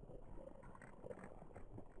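Faint, irregular crackles and soft ticks over a low steady hum.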